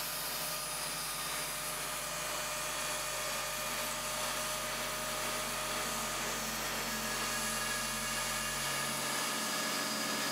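Trim-router spindle of a DIY CNC machine running at high speed with a steady whine while its small end mill cuts slots in 2.5 mm aluminium plate.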